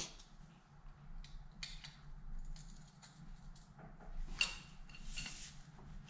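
Quiet metal clicks and scrapes of hand tools as an Allen wrench is fitted into the bolts of the engine's cylinder-head cover and a pipe is slid over it for leverage, with a few louder clicks about four to five seconds in.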